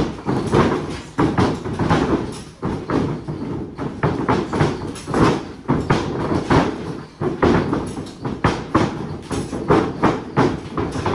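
Wrestlers running the ropes across a wrestling ring's mat, feet pounding and bodies thudding down flat as they drop down and pass by each other: a quick, uneven run of thumps and footfalls.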